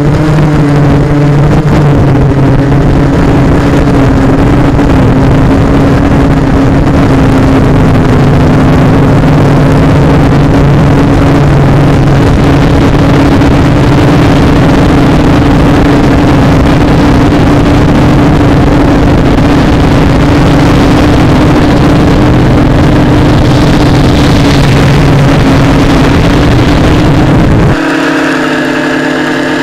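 FPV aircraft's electric motors and propellers running steadily in flight, heard up close through the onboard camera's microphone with air rushing past. About 28 seconds in, the sound drops suddenly to a quieter, higher whine as the throttle is cut on landing.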